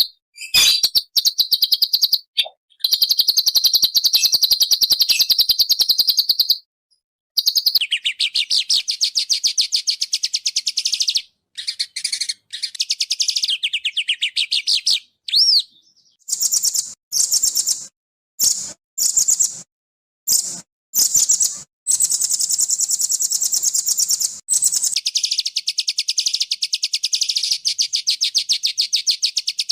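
Small songbird singing fast, dense high-pitched trills of rapidly repeated notes, in long runs broken by short pauses, with one brief up-and-down whistle about halfway through.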